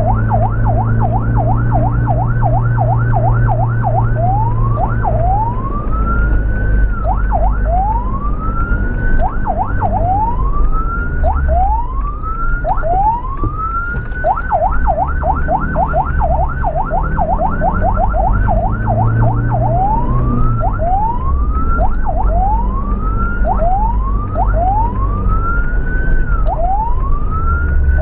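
Ambulance's electronic siren, switching back and forth between a fast yelp of about three quick sweeps a second and a slower wail of long rising sweeps. Under it runs the steady low drone of the vehicle's engine and tyres on the road.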